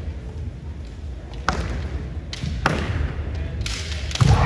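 Kendo bout: two sharp knocks of bamboo shinai and footwork on the wooden floor, about a second apart, then near the end a sudden loud burst as a strike is made.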